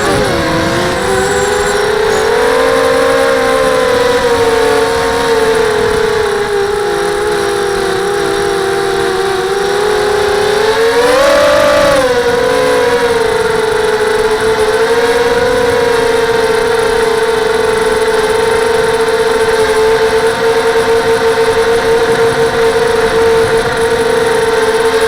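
FPV quadcopter's SunnySky 2204 2300KV brushless motors spinning 5x3 props in flight, a steady whine whose pitch wavers with throttle and climbs briefly about eleven seconds in.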